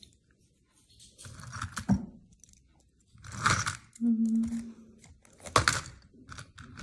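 Hands handling metal earrings and their wrapping: three bursts of crinkling and rustling, with small clicks between them.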